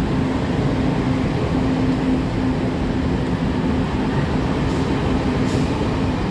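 Chu-Kuang express passenger coaches rolling past alongside the platform: a steady rumble of wheels on rail with a constant low hum.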